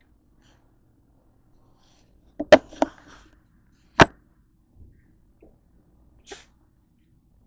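Handling noises as things are picked up and set down on a table: a quick cluster of sharp knocks about two and a half seconds in, one loud single knock about four seconds in, then a few lighter taps.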